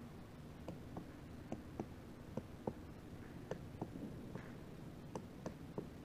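Pileated woodpecker pecking at a tree trunk: about a dozen sharp, separate wooden taps at an uneven pace, often in pairs, the slow single blows of a bird excavating wood rather than drumming.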